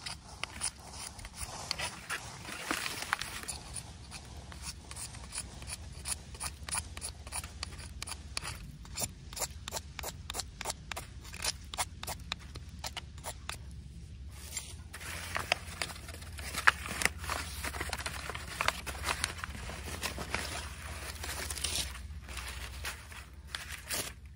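A knife spine scraped again and again along a ferrocerium rod over a sheet of paper, in short quick strokes a few times a second with brief pauses, shaving the rod into a small pile. The last strokes near the end throw sparks.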